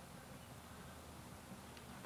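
Near silence: a faint steady hiss and low hum, with one faint tick near the end.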